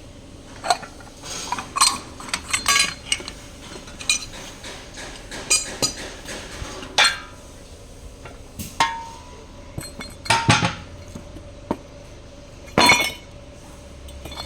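Metal transmission parts and hand tools clinking and clanking against each other as they are handled, in irregular sharp knocks, one of them ringing briefly about two-thirds of the way through.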